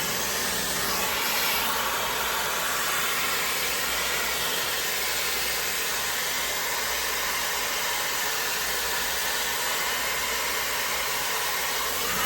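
High-speed hot air styler (hair dryer brush, 110,000 RPM motor) running steadily, blowing a constant rushing hiss of air.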